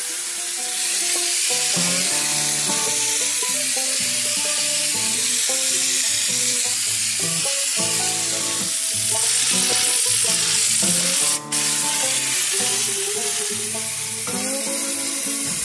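A steady spray hiss under background music: an air spray gun applying two-part textured bedliner paint. The hiss cuts out for a moment about two-thirds of the way through, then resumes.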